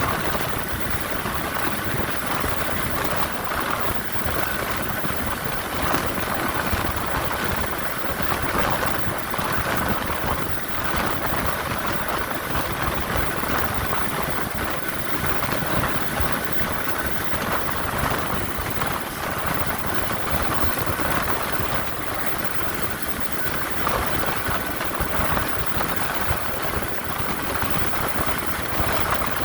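Helicopter running steadily: engine and rotor noise at a constant level, with a fast, even pulsing.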